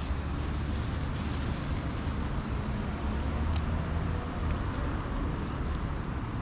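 Steady low rumble of road traffic in outdoor ambience, with one sharp click about three and a half seconds in.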